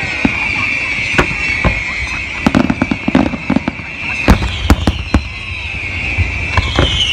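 Fireworks going off: a quick, irregular series of sharp bangs and crackles from bursting shells over a steady high-pitched whine. Deeper booms set in from about four seconds in.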